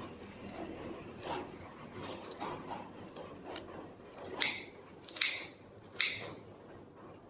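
Scissors snipping fresh red chili peppers into a bowl: a series of short, sharp cuts, the loudest three in the second half about a second apart.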